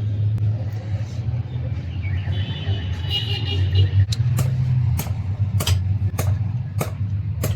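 An engine running with a steady low hum, with sharp clicks about every half second to second and a brief high whine near the middle.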